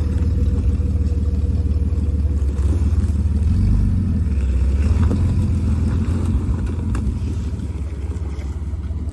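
Off-road 4x4's engine running at low revs as the rig crawls over rocks, the engine note rising a little midway and easing off near the end.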